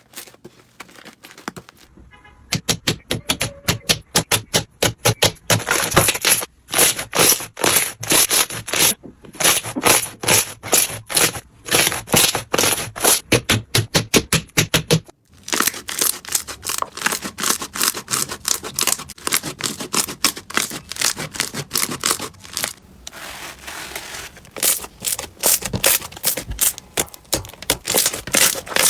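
Slime being squeezed and pressed by hand, giving rapid crackling pops several times a second. The crackling breaks off briefly about fifteen seconds in, then carries on.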